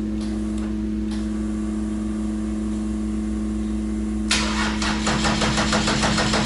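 A steady electric hum, then about four seconds in the starter cranks the aircraft's diesel engine over with an even rapid chugging pulse. The battery is run down and the engine does not fire.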